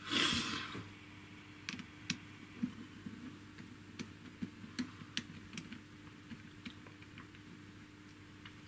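Light plastic clicks and ticks from fingers working the opened housing and circuit board of a CB radio hand microphone, scattered and irregular, with a brief rustle right at the start.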